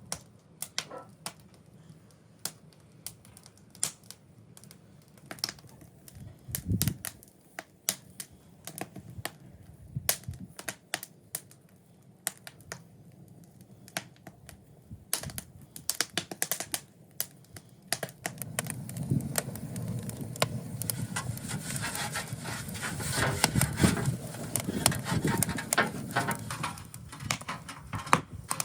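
Irregular sharp clicks and taps, joined about eighteen seconds in by a denser, louder clatter and rustling.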